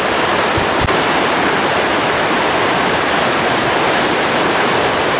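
Swollen mountain river in spring spate, fast whitewater rushing over rocks in a loud, steady wash of water noise.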